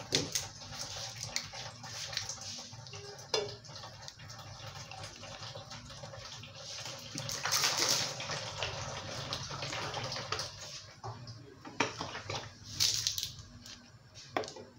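Palm oil poured from a bottle into a large empty metal cooking pot, a steady trickling pour that swells about halfway through and again near the end, with a few sharp knocks of bottle or pot.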